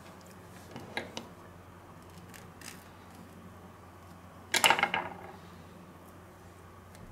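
Small knife and sausage handled on a wooden cutting board: a few faint clicks about a second in, then a short clatter a little after four seconds in as the knife is laid down on the board. A low steady hum runs underneath.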